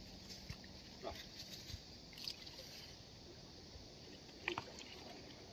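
Faint seaside ambience: a low, steady wash of calm sea water, with a few light clicks, the clearest about four and a half seconds in.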